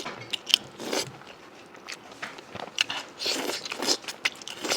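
A person eating close to the microphone: bites and chewing with many short crunchy clicks. Louder mouthfuls come about a second in and again just past three seconds.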